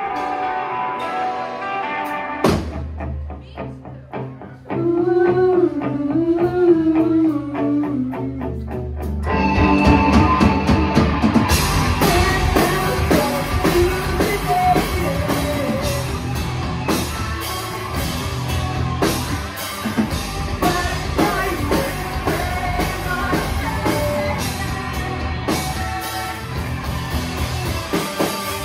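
Live rock band playing electric bass, electric guitar and drum kit through amplifiers. Ringing chords give way about two and a half seconds in to a hit and a quieter passage with a single wavering melody line, and about nine seconds in the full band comes in louder with steady drumming.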